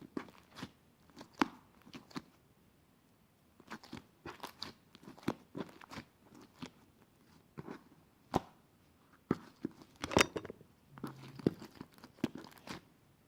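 Crunchy food being bitten and chewed, in irregular crunches with short pauses and a louder cluster of crunches about ten seconds in.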